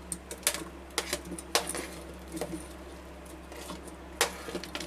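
Steel spoon clinking and tapping against a stainless steel mixer jar as watermelon chunks are scooped off a plastic chopping board and dropped in: a run of irregular sharp clicks, a few louder than the rest.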